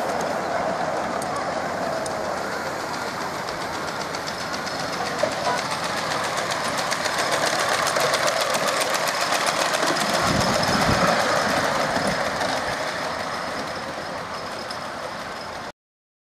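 Ride-on miniature steam train running on a raised track: a fast, steady clatter of wheels on rail, loudest as it passes close about ten seconds in, then cut off abruptly just before the end.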